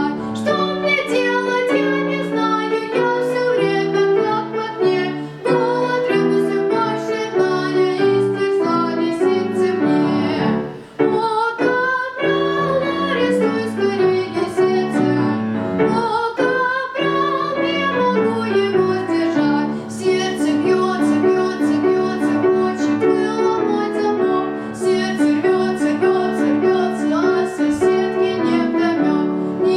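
Solo voice singing a song to piano accompaniment, the voice sliding up in pitch on long notes about eleven and sixteen seconds in.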